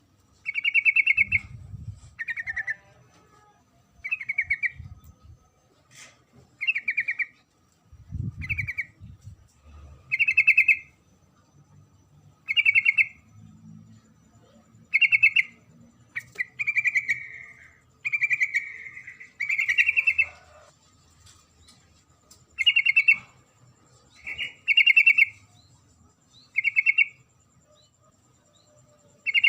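Female yellow-vented bulbul (trucuk) calling, short chattering phrases repeated about every two seconds. It is a female call that draws males.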